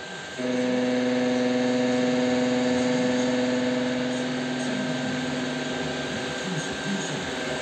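A workshop machine's electric motor running with a steady hum, starting suddenly about half a second in.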